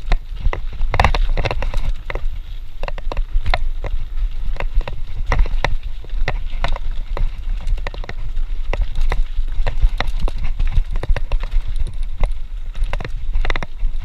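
Mountain bike rattling and clattering over bumps on a rough dirt trail: a dense, irregular run of sharp knocks and clicks over a constant low rumble.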